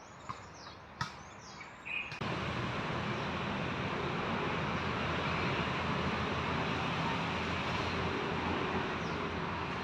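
Short, high, descending chirps of small birds and a couple of faint clicks. About two seconds in, a steady rushing noise starts suddenly and covers everything to the end.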